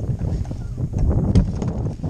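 Wind buffeting the microphone, a heavy low rumble, with a few sharp knocks, the clearest about one and a half seconds in.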